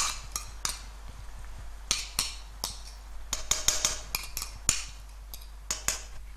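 A metal spoon scraping and knocking against a ceramic bowl as spiced yogurt is scraped out into a wok: irregular sharp clinks, grouped about two seconds in, between three and four seconds in, and near the end.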